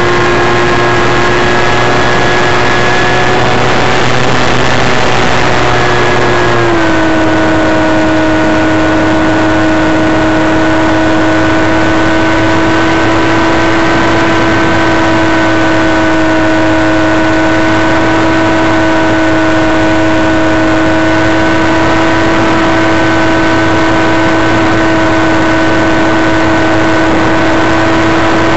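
Motor and propeller of a radio-controlled powered glider running steadily in flight, a constant whine over rushing air. The pitch steps down slightly about seven seconds in and then holds.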